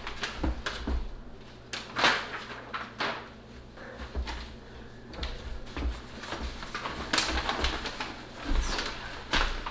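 Large paper mounting template rustling and crinkling as it is held up and taped flat against the underside of a wall cabinet, with irregular light knocks and scrapes.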